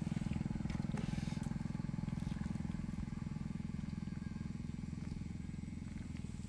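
A small engine running steadily nearby, a low rapidly pulsing drone that does not change, with a faint click about a second in.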